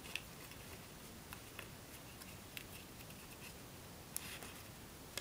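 Faint handling of folded origami paper: small crisp crackles and ticks as the paper is pinched, opened and creased, a handful of them scattered over a few seconds, the most around four seconds in.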